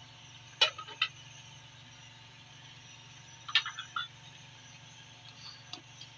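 Sharp clinks and knocks of cookware being handled around an aluminium cooking pot, in two short clusters about half a second in and again around three and a half seconds, with a few faint ticks near the end. A steady low hum lies beneath.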